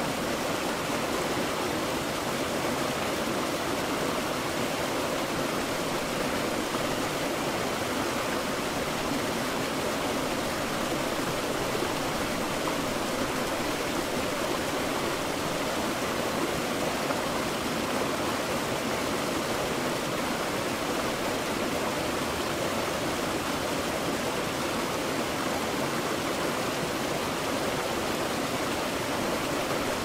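Small waterfall splashing steadily over rocks into a plunge pool, a constant rushing of falling water.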